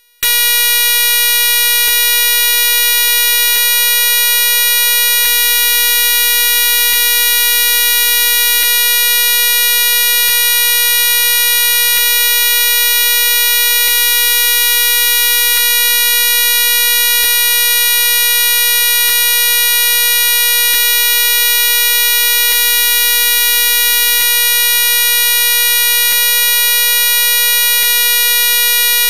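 A loud, steady electronic buzzing tone, pitched around 500 Hz, that switches on abruptly and holds without change, with faint ticks repeating about every second and a half to two seconds.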